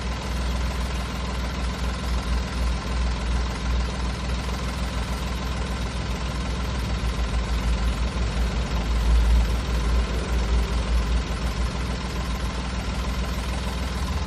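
Daihatsu Hijet Cargo's small three-cylinder engine idling steadily with an even low throb. It is running normally, without the abnormal noise it makes at other times.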